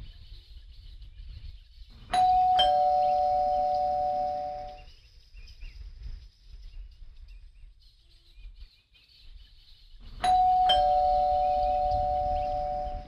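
Electric two-tone doorbell chime rung twice, about eight seconds apart: each time a higher note, then a lower note half a second later, both ringing on for a few seconds.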